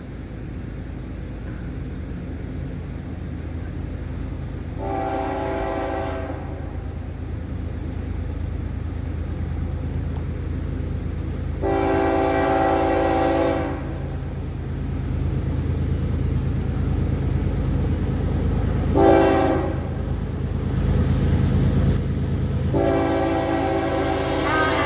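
Florida East Coast Railway locomotive air horn sounding the grade-crossing signal, long, long, short, long, with each blast a chord of several tones. The steady low rumble of the approaching train runs underneath, and the last long blast is still sounding at the end.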